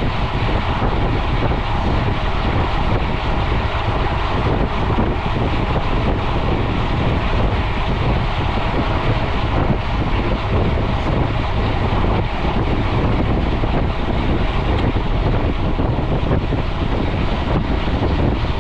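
Steady rush of wind over an action camera's microphone as a mountain bike is ridden fast on a paved road, with the hum of the bike's tyres underneath.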